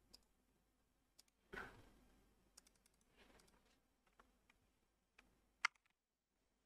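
Faint, sparse computer keyboard and mouse clicks in a near-silent room, a handful of separate taps with the sharpest about two-thirds of the way in; a soft puff of noise comes about a second and a half in.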